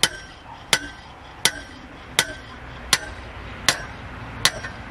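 Steady hammer blows driving a metal stake into the ground: seven evenly spaced strikes about three-quarters of a second apart, each with a short metallic ring.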